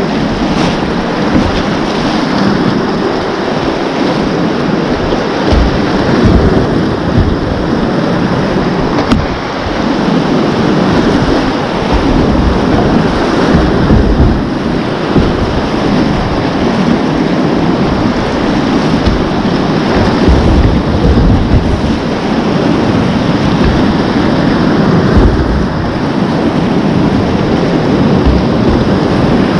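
Whitewater rapids rushing loudly around a whitewater kayak, a steady roar of churning water, with irregular low buffeting on the microphone.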